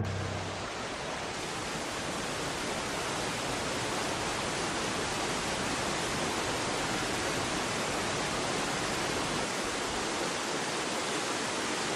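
Steady rush of a fast-flowing torrent of water: an even, hiss-like noise with no rhythm or pitch.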